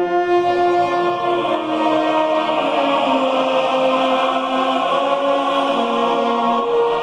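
Choral music: a choir singing slow, long held notes, its lower line stepping gradually down in pitch.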